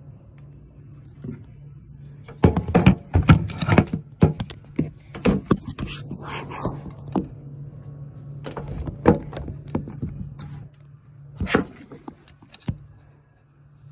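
Handling noise from a phone camera being picked up and moved about: a run of irregular knocks, bumps and rubs close to the microphone, over a low steady hum.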